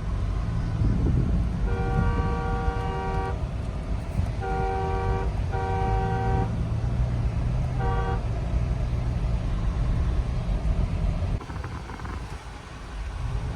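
Car horn honking in stop-and-go traffic: one long blast, then two shorter ones and a brief toot, over the steady low rumble of engines and road.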